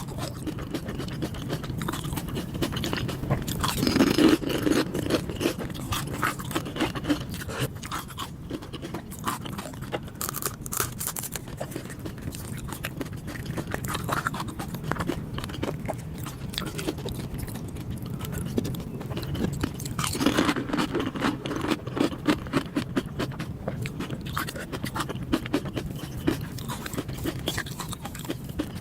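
Close-miked eating sounds: chewing and biting with a constant run of small wet clicks, crackles and scrapes. There are two louder bouts of chewing, about four seconds in and again about twenty seconds in.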